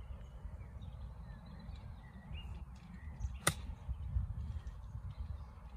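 Wind rumbling on the microphone, with faint bird calls, and one sharp crack about three and a half seconds in: a golf club striking a ball.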